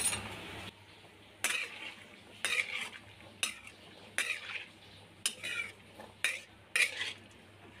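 A metal spatula stirring and scraping boiled chickpeas around a metal wok as the chole masala is mixed in, in short strokes about once a second.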